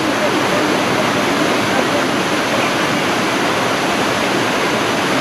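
A high-flow waterfall pouring down a rocky canyon chute: a loud, steady rush of falling water.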